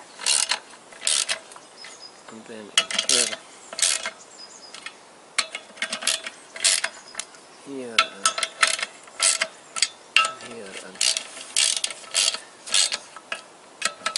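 Hand socket ratchet clicking in quick bursts of strokes while clutch pressure-plate bolts are snugged down lightly onto the flywheel, ahead of the final torque.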